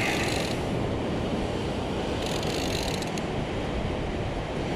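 Overhead game-fishing reel being wound steadily by its crank handle, its gears turning as it retrieves line with a fish on, over the steady wash of surf.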